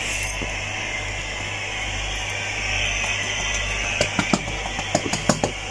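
Hands pressing paratha dough on a granite counter: a steady kitchen hiss with a quick run of light, irregular clicks and taps about four seconds in, as rings and bangles knock on the stone.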